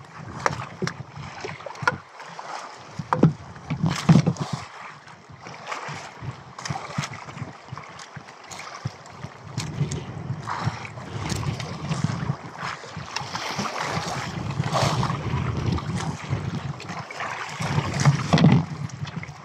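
Wind buffeting the microphone and sea water washing against a small outrigger fishing boat, with scattered knocks and bumps as a gaffed mahi-mahi is worked alongside the hull.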